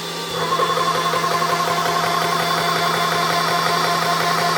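CS6 Pro high-pressure PCP air compressor starting up about a third of a second in and then running with a fast, even pulsing, over the steady hum of its cooling fans.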